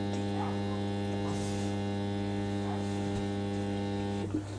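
Washing machine water inlet valve humming steadily at mains pitch while the machine pulse fills, then cutting off suddenly about four seconds in.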